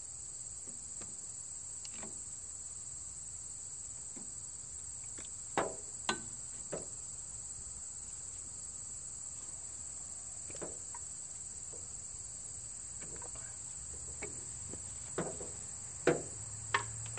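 Hydraulic quick-connect couplers on a Kubota L3800's loader hoses being uncoupled, giving a handful of sharp metallic clicks and clacks: a pair about a third of the way in and a cluster near the end. A steady chirring of crickets runs under them.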